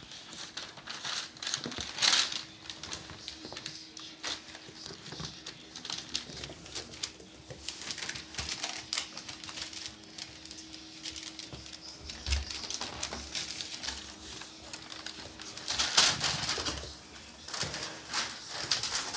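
A litter of young puppies scuffling and playing on a rug: steady tapping and scratching of small paws and claws, with rustling, and louder scuffles about two seconds in and again near the end.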